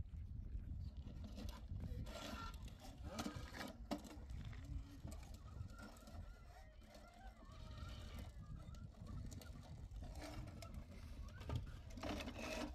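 Farmyard fowl calling now and then, short pitched calls over a low steady rumble.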